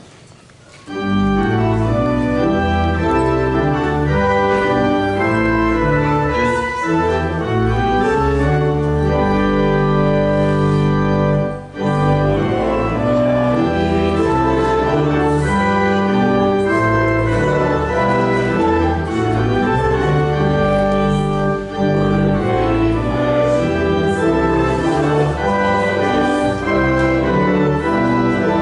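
Church organ playing slow sustained chords, starting about a second in, with a short break between phrases about halfway through.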